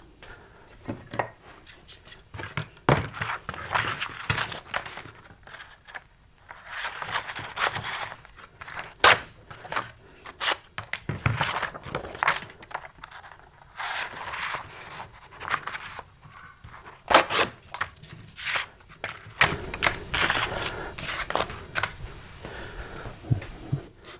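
A sheet of sandpaper being handled, rustling and scraping, among scattered clicks and knocks of tools and the knife being picked up and set down on a workbench.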